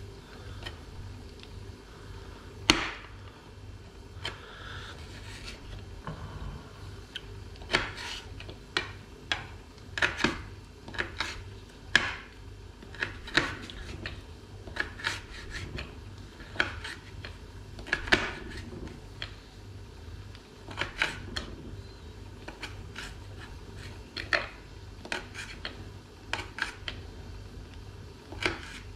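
Knife slicing a pepper: sharp, irregular taps of the blade coming down, roughly one or two a second, with soft rubbing between them.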